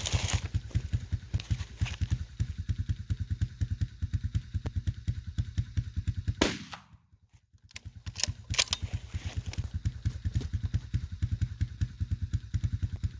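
Four-wheeler engine idling with an even low putter. About six and a half seconds in, a single sharp hunting-rifle shot cracks out. The sound drops almost out for about a second after the shot, and then the idle returns.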